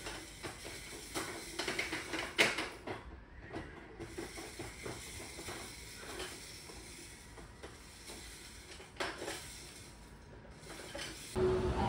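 Scattered light clicks, knocks and rubbing of small objects being handled, in no regular rhythm.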